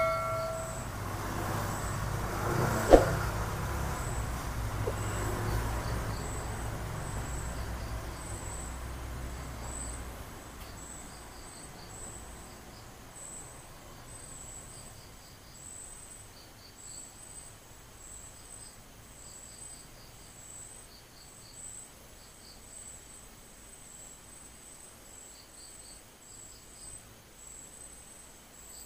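Insects, crickets among them, chirping in rows of short high pulses over a steady high whine. A passing vehicle's low rumble fades away over the first ten seconds, and a single sharp click sounds about three seconds in.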